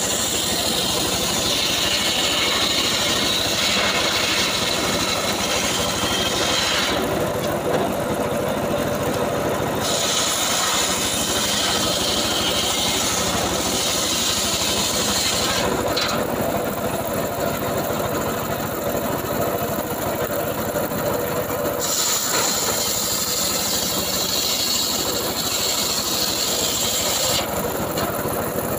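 Homemade circular sawmill ripping logs lengthwise: a steady machine drone with a high hiss while the blade is in the wood. The hiss drops away twice in the middle and again near the end, while the blade spins free between cuts.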